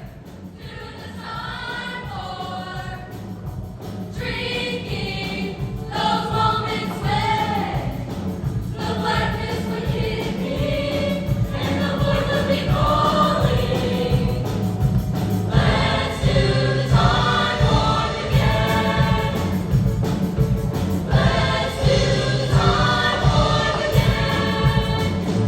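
Junior-high girls' choir singing phrases with short breaks between them.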